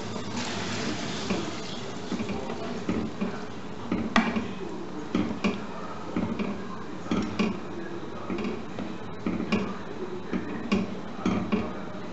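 A spoon stirring food in a saucepan, knocking and scraping against the pot in uneven strokes.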